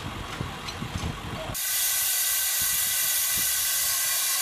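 A low rumble with a few faint clicks, then about a second and a half in an abrupt change to a loud, steady hiss with faint steady tones in it.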